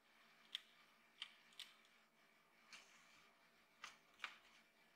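A few faint, sharp clicks, about six spread unevenly, of a small screwdriver turning and seating a screw in the base of a toy model car.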